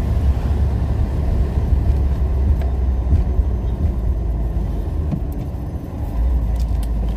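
Talbot Talisman motorhome on the move: a steady, heavy low engine and road rumble.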